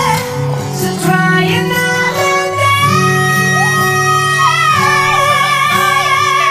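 A high male singing voice in a slow-rock cover song over acoustic guitar, holding a long high note through the second half.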